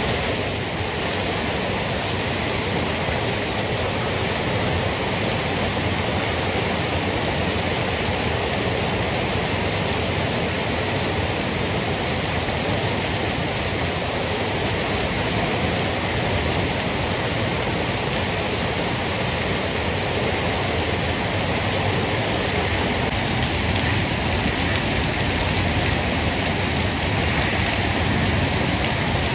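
Heavy rain falling steadily on paved ground: an even, unbroken hiss of drops and splashing.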